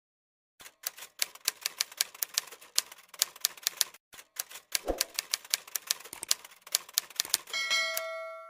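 Typewriter sound effect: rapid key clacks, about four or five a second, with one heavier thump about five seconds in. Near the end a ringing bell ding fades out.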